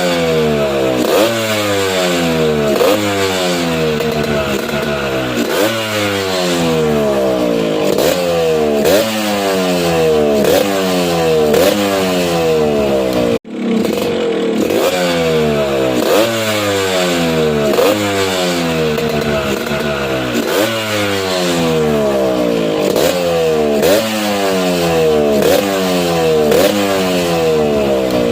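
Yamaha RX135 two-stroke single-cylinder engine running through a bottle-type expansion chamber exhaust. It is revved in repeated throttle blips about every second and a half, each jumping up in pitch and sliding back down. The sound cuts out briefly about halfway, then resumes.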